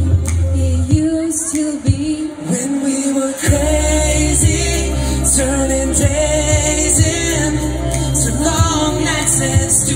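Live pop music through a stage PA, with a woman singing lead over a backing track; the bass and beat drop out for a couple of seconds and come back in about three and a half seconds in.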